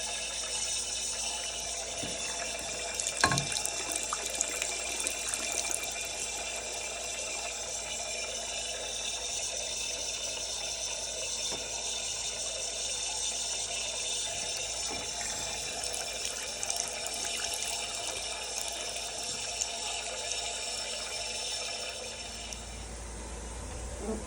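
Water running steadily from a tap, with a single knock about three seconds in; the rush of water falls away near the end. It is the hot tap fed by a combi boiler that is now holding its temperature.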